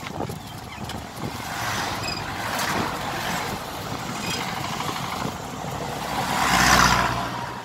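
Road and wind noise of a moving pickup truck heard from its open cargo bed: a steady rush that swells twice, loudest about six to seven seconds in.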